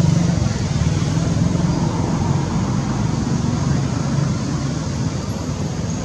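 Steady motor-vehicle engine and road noise: a low droning hum with a hiss over it, a little weaker after the first half second.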